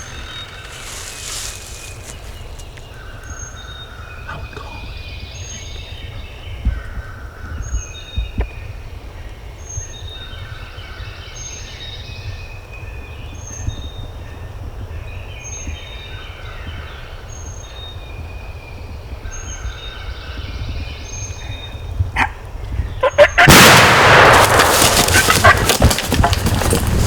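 Songbirds singing, one repeating a short high note about every second and a half. Near the end, a couple of sharp clicks, then a very loud shotgun blast that kills a wild turkey gobbler. Loud rustling noise follows.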